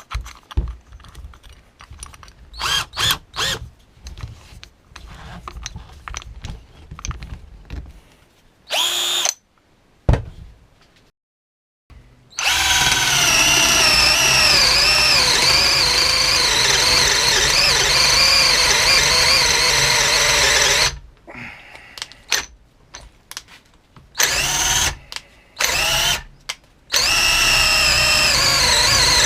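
Parkside PBSA 12 D4 12 V cordless drill boring a 19 mm wood boring bit through 4x2 timber. After some clicks and short bursts, it runs steadily for about eight seconds from twelve seconds in, its whine wavering as the bit loads in the wood. It stops, gives a few short bursts, then runs again near the end.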